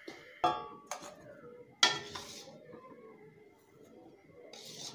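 Steel pan and utensils clanking as roasted semolina is scraped out of the pan: three knocks with a metallic ring, the loudest about two seconds in, followed by softer scraping and a short hiss near the end.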